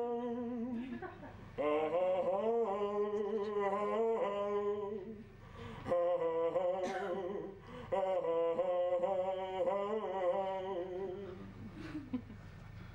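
A man singing solo on stage in long, wavering held notes, in three phrases with short breaths between them. The singing ends with a falling note about eleven seconds in.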